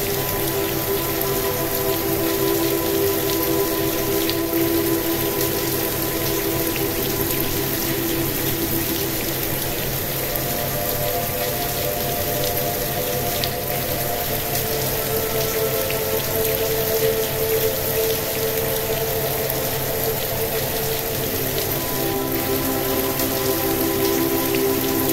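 Steady rain falling with scattered raindrop taps, mixed with a slow ambient pad of held chords that changes about ten seconds in and again near the end.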